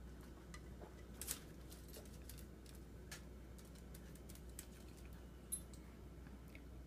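Near-quiet room with a few faint, scattered clicks: small dogs' claws ticking on a tile floor.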